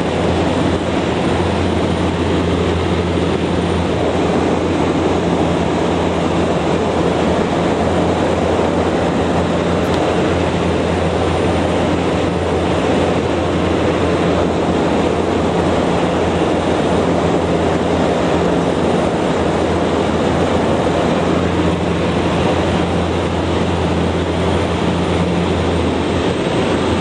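Steady cabin noise of a Cessna Caravan in flight: its PT6A turboprop and propeller give a constant low hum under a loud rush of air.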